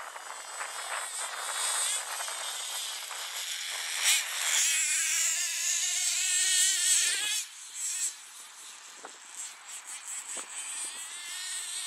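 Twin .26 nitro engines of a Hot Bodies Lightning GTX2 RC model running at speed on grass: a high buzz that grows loudest in the middle, with a wavering pitch, then falls back to a fainter buzz in the last few seconds.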